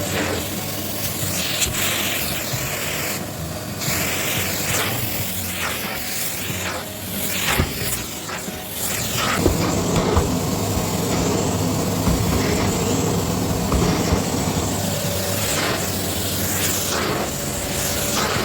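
Philips 3000 Series bagless vacuum cleaner running, its motor humming steadily under a loud rush of air that swells and dips as it works.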